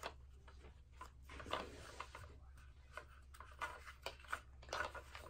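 Faint scattered clicks and light rubbing as a plastic toy car is handled and turned over.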